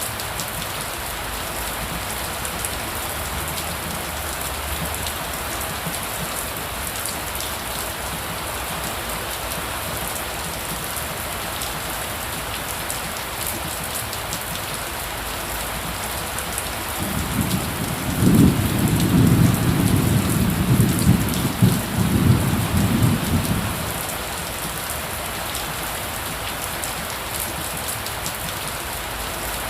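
Heavy rain falling steadily, with a low rumble of thunder starting about 17 seconds in and lasting some six seconds.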